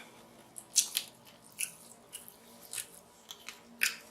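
Short, irregular clicks and crunches of king crab legs being cracked open and eaten, about ten separate snaps.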